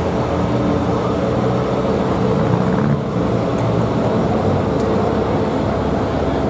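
Bobcat skid steer's engine running steadily.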